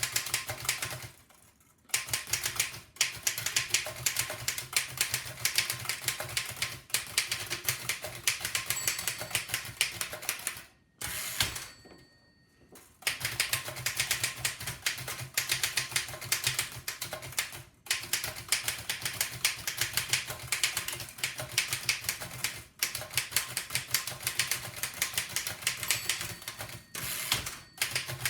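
1905 Fox No. 3 upstrike typewriter being typed on fast: long runs of rapid keystroke clacks, broken by a few short pauses.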